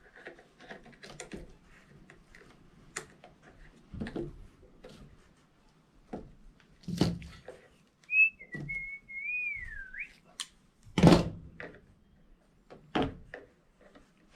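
A person whistling a short wavering phrase of about two seconds, one pure tone sliding down and up, about eight seconds in. Scattered knocks and thumps from handling things come before and after it, the loudest a thump about three seconds after the whistle.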